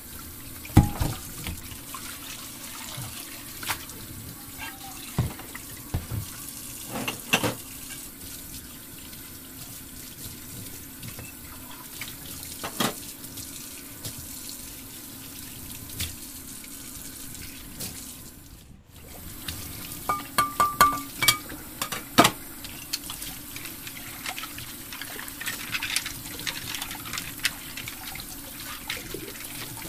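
Scattered light clicks and taps of small plastic toy-kitchen pieces being handled, with a quick run of clicks about two thirds of the way through, over a steady background hiss.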